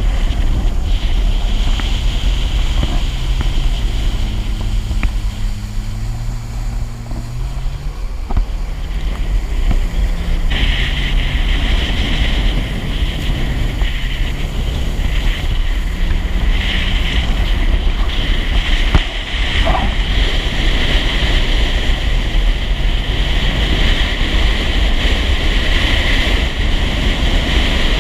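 Jet ski running at speed, heard from the rider's seat: heavy wind on the microphone over the engine and rushing water, with the engine note rising in the first several seconds. A brighter, higher hiss joins about ten seconds in and holds.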